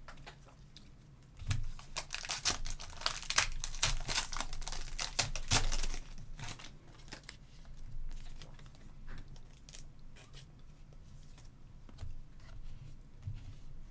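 Foil wrapper of a 2023-24 Donruss basketball card pack being torn open and crinkled, a loud crackling that lasts about four seconds and stops about six seconds in. After that come soft, scattered clicks as the stack of cards is handled and fanned.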